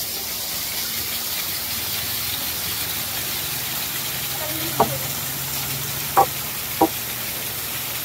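Small waterfall splashing steadily, a continuous rushing hiss of falling water. Three brief sharper sounds stand out about five, six and seven seconds in.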